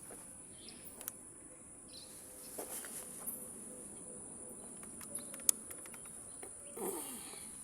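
A steady, high-pitched insect drone, with a few sharp clicks over it, the loudest about five and a half seconds in.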